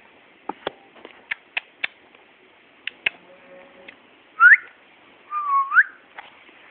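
A person whistling two short notes: first a quick rising whistle, then a longer one that dips and rises again. Before the whistles come several sharp clicks.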